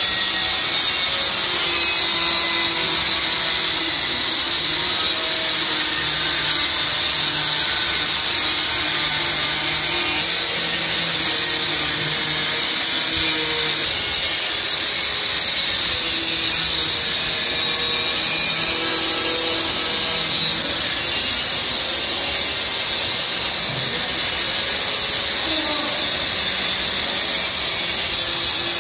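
Steady, loud machine noise with a strong hiss, holding an even level with no breaks.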